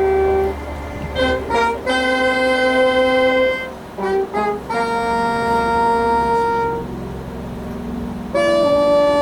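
Marching band playing a field show: the brass holds three long chords, with short quick notes in between.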